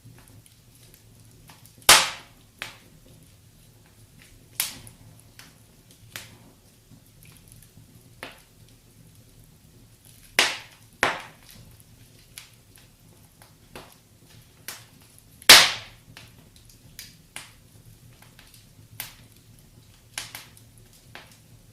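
Wood fire in a fireplace crackling: irregular sharp pops and snaps, the loudest about two seconds in, two close together near the middle, and one more about three quarters of the way through, over a low steady background.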